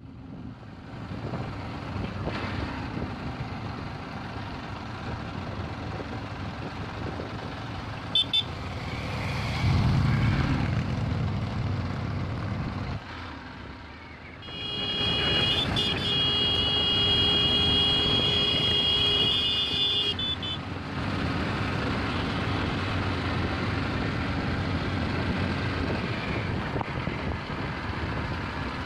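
Engine and wind noise of a vehicle on the move. About eight seconds in there is a short double horn toot, and around the middle a long steady horn blast lasts about six seconds.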